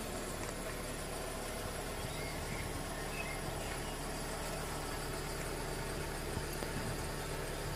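A steady low hum with a faint noisy background, unchanging throughout.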